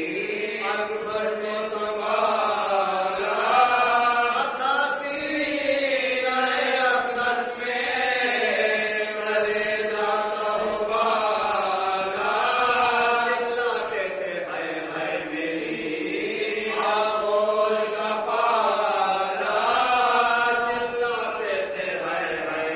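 A group of men chanting a marsiya, an Urdu elegy for Hazrat Abbas, together in a slow, wavering melody with no instruments.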